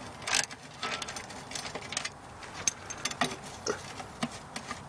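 Hand tools at work on metal: scattered, irregular clicks and clinks, from a ratchet and bolts being handled.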